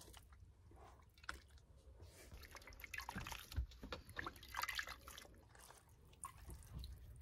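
Faint, irregular splashing and dripping of water as a washcloth is dipped in a small basin of water in a sink, busiest in the middle.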